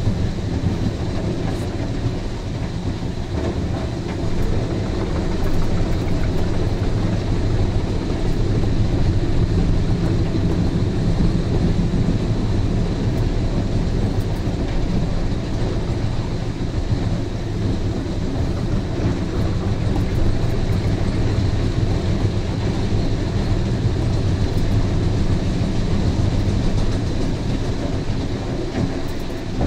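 Albach Diamant 2000 chipper running under load, chipping softwood logs fed in by its crane grapple: a loud, steady, low mechanical drone from inside the operator's cab.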